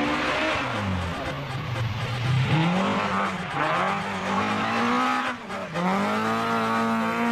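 Vehicle engine sound revving up and down several times, its pitch rising and falling in slow waves over a rushing hiss.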